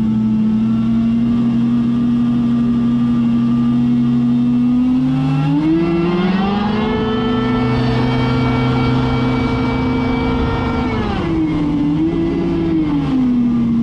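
Mini jet boat's supercharged four-cylinder Kawasaki Ultra 250X engine running steadily, then revving up about five seconds in, holding a higher pitch for about four seconds and dropping back, with a short blip before settling again.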